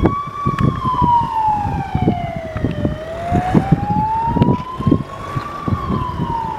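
Emergency vehicle's electronic siren on a slow wail, its pitch climbing and falling in even ramps about every five seconds, over an irregular low rumble.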